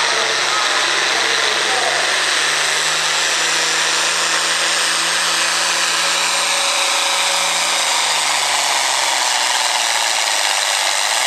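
International Harvester farm tractor's diesel engine running flat out under heavy load while pulling a weight-transfer sled. Its pitch holds steady, then sags over the last few seconds as the sled's growing weight pulls the engine down.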